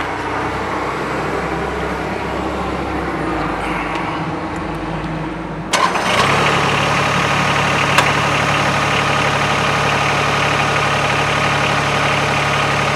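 Branson 2205h tractor's diesel engine starting with a sudden jump in level about six seconds in, then idling steadily. A single sharp click comes shortly after it catches.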